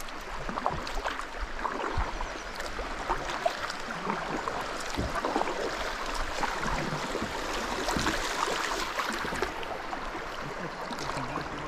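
Fast river water rushing and lapping against a plastic kayak hull as it drifts downstream, with scattered small splashes and knocks.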